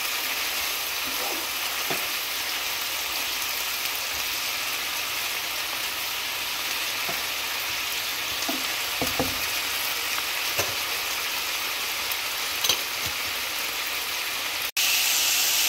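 Mixed vegetables sizzling in a nonstick frying pan as they are stir-fried with a spatula: a steady hiss with a few light scrapes and taps of the spatula against the pan. Near the end the sound drops out for an instant and comes back louder.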